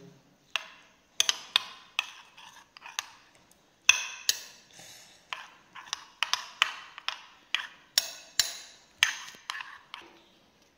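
Metal spoon clinking against a glass bowl while stirring raw egg with chopped onion and tomato: quick, irregular clinks, about two or three a second, that stop shortly before the end.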